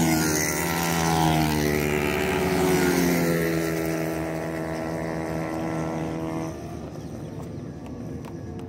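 Racing motorcycle engine at high revs speeding past on the track. Its pitch drops as it goes by, then holds steady as it pulls away, and it falls off sharply about six and a half seconds in.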